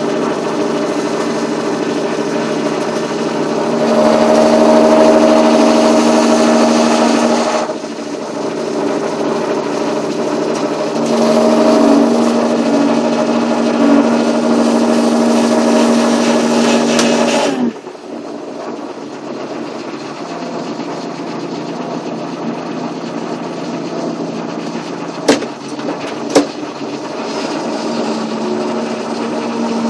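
John Deere 7530 tractor's turbocharged diesel engine running under load, swelling louder twice as the throttle comes up and then dropping back suddenly to a quieter steady run. Two sharp clicks stand out near the end.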